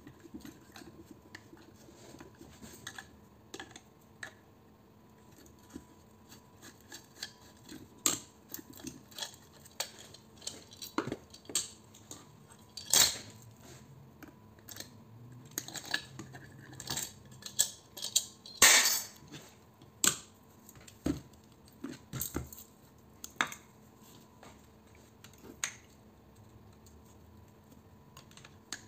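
Hand tools clinking and scraping on metal as a transformer is taken apart on a steel workbench plate: a screwdriver and pliers working at its terminals, coils and laminated core. Irregular clinks and knocks, with the loudest two a few seconds apart about halfway through.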